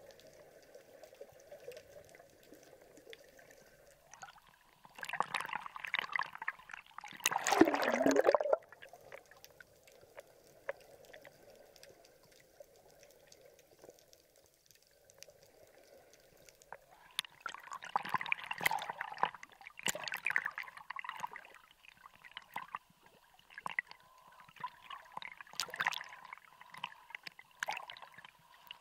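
Sea water sloshing and bubbling around a camera held just under the surface, heard muffled from underwater, with several bursts of splashing and bubbles between quieter stretches, the loudest about eight seconds in.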